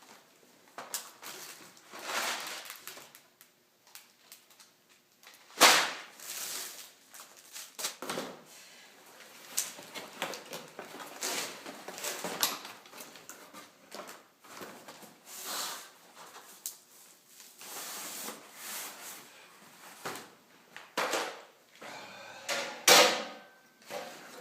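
Irregular knocks, clunks and rustling as the parts of a Harbor Freight sandblasting cabinet are handled and fitted together during assembly, with two sharper knocks, about six seconds in and near the end.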